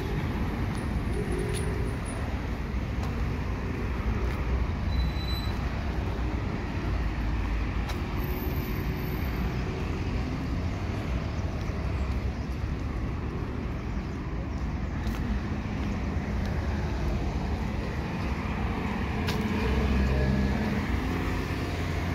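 City street traffic: a steady wash of cars and other motor vehicles going by, with a low engine rumble under it. It swells briefly as a vehicle passes close near the end.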